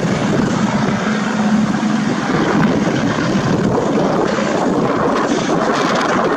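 UH-72 Lakota military helicopter flying past, its rotor and turbine noise steady and loud with a fast rotor flutter; a low hum under it drops out about two seconds in.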